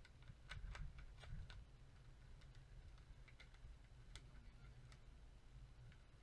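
Near silence with a low hum and faint scattered clicks: several in the first second and a half, a few more around three to four seconds in.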